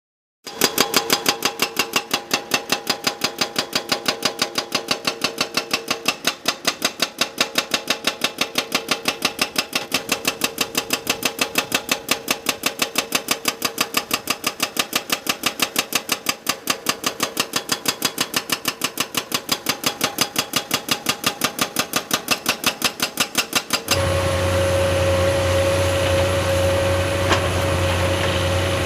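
Engine running with a fast, even knocking pulse, about three to four beats a second. About 24 seconds in it cuts abruptly to a steadier engine sound with a held hum.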